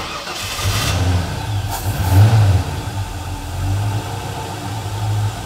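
A stock LS1 V8 with a newly installed MSD Atomic EFI LS throttle-body injection system starting for the first time on its baseline calibration. It comes in suddenly, rises to a loud peak about two seconds in, then settles into a steady idle.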